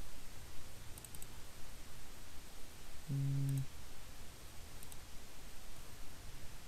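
A few faint computer mouse clicks, spaced a second or two apart, over a low steady hum. About three seconds in there is a brief hummed "mm" from a man's voice.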